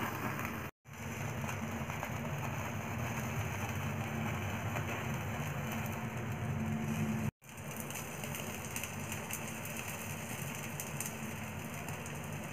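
Steady rushing of a gas stove burner on high flame under a wire rack, as chicken chars directly over the flame. The sound cuts out sharply twice for a moment, about a second in and about seven seconds in.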